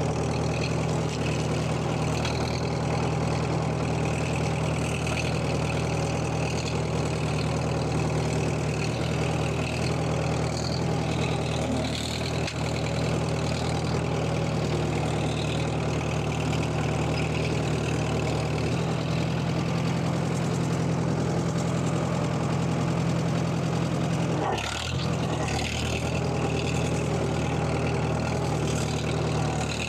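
1942 Farmall M tractor's four-cylinder engine running steadily as the tractor is driven, with a momentary dip in level near the end.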